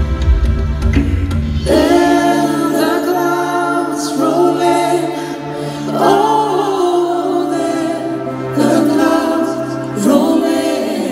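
Live ballad: a female lead singer holds long sung phrases with vibrato over a band of keyboards and drums. A deep bass layer drops away about two seconds in, leaving the voice over lighter accompaniment.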